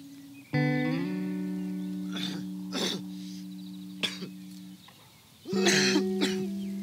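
Sparse acoustic guitar score: a low plucked note that slides up and rings for several seconds, then a second note struck about five and a half seconds in. Short, sharp noisy sounds fall between the notes, the loudest near the end.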